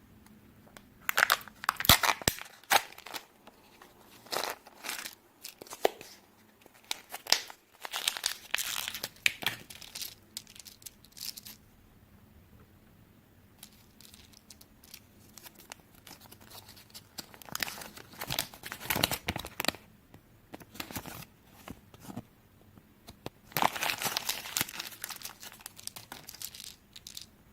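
Foil wrappers of Kinder chocolate eggs being torn open and crinkled by hand, in bursts of crackling with short quiet pauses between them.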